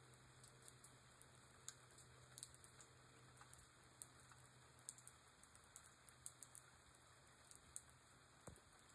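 Light rain: scattered raindrops pattering, faint, as irregular small ticks several times a second.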